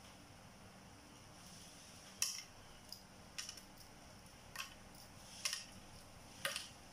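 Shell of a boiled egg being cracked and peeled off by hand: about six short, sharp crackles, spaced roughly a second apart from about two seconds in.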